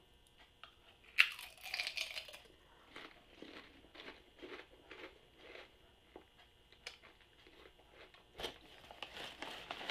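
Close crunch of a bite into a Lay's potato chip about a second in, then chewing, with short crunches about twice a second that fade away. A sharp click comes near the end.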